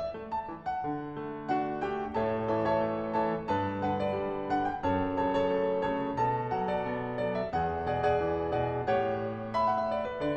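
Background music: a piano melody with chords.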